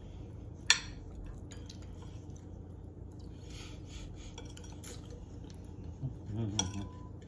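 Spoons and forks clinking against plates while people eat, with one sharp, loud clink a little under a second in and scattered lighter clinks after it.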